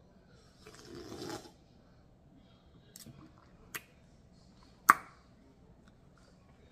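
A sip from a soda can about a second in, followed by a few light clicks and one sharp click a little before five seconds in, the loudest sound.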